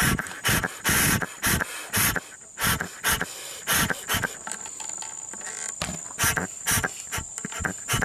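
Breath blown and sucked by mouth through a Chevy Cruze 1.4 turbo's crankcase ventilation (PCV) hose port: about a dozen short puffs and draws of air, roughly two a second, with a lull near the middle. This is a check of whether the port's small rubber check diaphragm seals.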